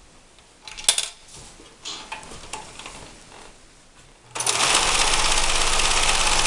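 A JCPenney model 6940 sewing machine starts stitching about two-thirds of the way in and runs steadily at speed. Before it starts there is one sharp click, then a few light knocks.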